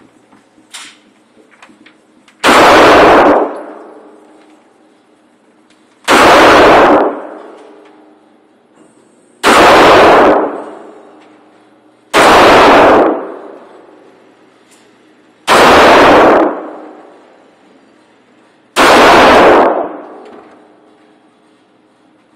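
Handgun firing six single, slow aimed shots, about one every three seconds, each very loud with a ringing echo that dies away over about a second in a concrete-walled indoor range. A few faint clicks of handling the pistol come just before the first shot.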